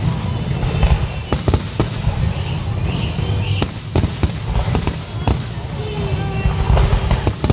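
Fireworks display: aerial shells bursting in an irregular series of sharp bangs, several close together, over a continuous low rumble.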